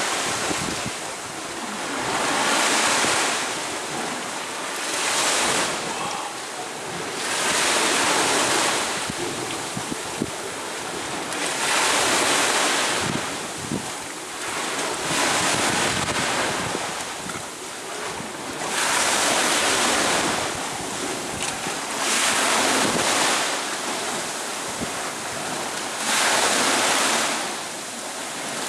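Atlantic waves breaking and washing up a sand beach in a small rock-enclosed cove, surging about every three seconds.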